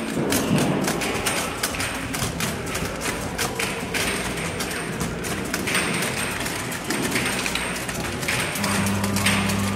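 Rapid, irregular clacking and thudding of the 1928 National Novelty Knock Out Fighters, a fully mechanical coin-op boxing game, as its trigger-driven metal boxers throw punches, with music playing in the background.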